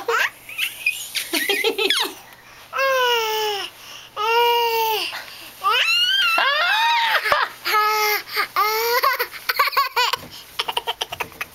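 A baby laughing and squealing: quick giggles, then about five long high-pitched squeals of around a second each, and a fast run of giggles near the end.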